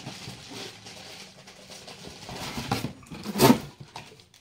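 Plastic wrapping rustling and crinkling as non-stick pans are pulled out of their cardboard box, with a louder brief clatter about three and a half seconds in.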